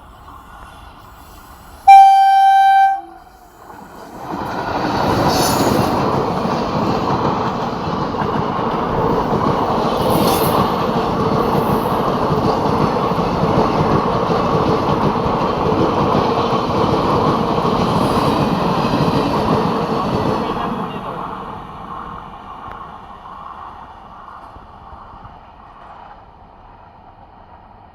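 A train horn sounds one loud blast of about a second. A couple of seconds later a train runs past with a steady rumble and rattle of wheels for about seventeen seconds, then fades away.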